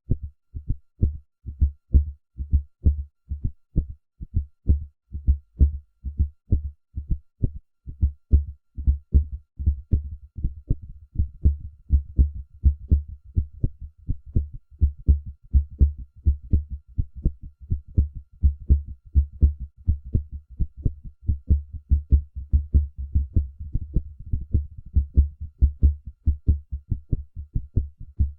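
Heartbeat: a steady rhythm of low, dull lub-dub thumps in pairs.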